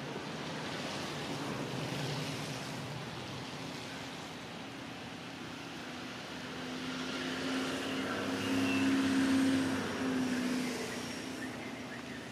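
A motor's steady hum over background noise, growing louder to a peak about nine seconds in and then fading, like a vehicle passing.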